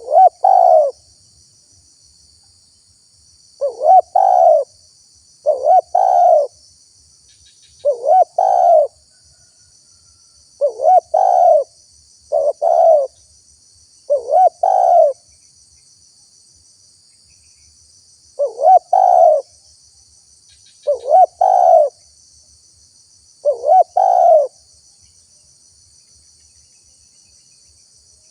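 Spotted dove (tekukur) cooing its rhythmic ter-kukur call, about ten phrases each roughly a second long with pauses of one to three seconds between them, falling silent near the end. A steady high insect trill runs underneath.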